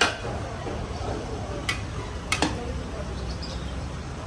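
Metal cookware clinking a few times: once at the start, once about a second and a half in, and twice in quick succession just after two seconds, over a steady low rumble.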